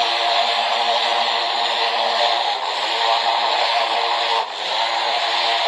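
Greenworks 80 V cordless pressure washer running under load, its electric motor and pump whining steadily under the hiss of the high-pressure water jet hitting vinyl siding. The motor briefly dips in pitch and level twice, about two and a half and four and a half seconds in, and picks straight back up.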